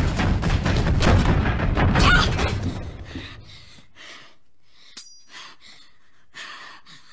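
Film sound effects: a loud crashing rumble of many rapid impacts that dies away about three seconds in, then a girl breathing hard in short gasps, with one sharp click about five seconds in.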